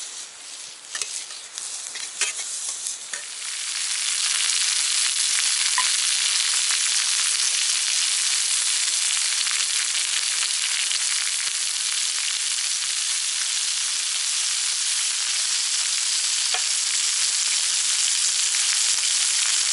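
A few scattered clicks and crackles, then about three and a half seconds in a loud, steady sizzle starts and keeps on: pork steak frying in a hot skillet.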